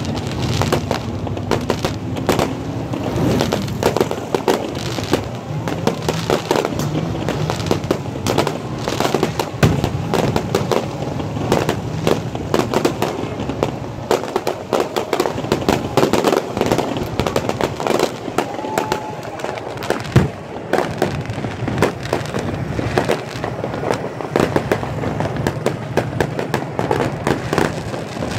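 Fireworks going off: a spark-spraying ground fountain and aerial bursts, with dense, rapid crackling and popping over a steady low hum.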